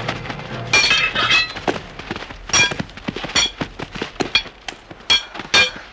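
Sword blades clashing: a series of sharp, ringing metal clangs, some in quick pairs, with smaller clicks between them.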